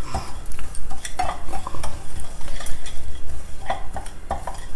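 Wooden spatula stirring broken wheat as it fries in a little ghee in a non-stick pan: the grains rustle and scrape against the pan in quick, irregular strokes, with a light sizzle underneath.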